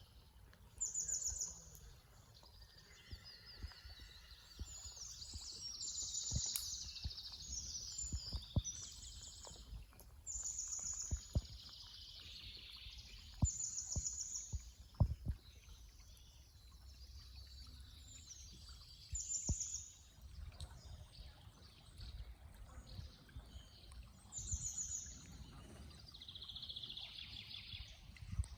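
Wild songbirds singing. One bird repeats a short, very high phrase every four to six seconds against other birds' varied warbling, with scattered soft knocks underneath.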